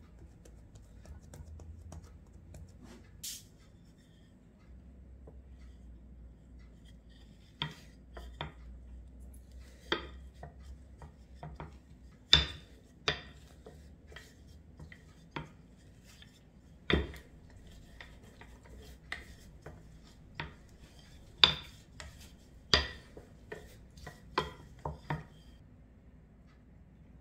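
Wooden rolling pin working bread dough flat on a silicone baking mat, with irregular sharp knocks and taps about every second, after several quiet seconds of hands handling the dough.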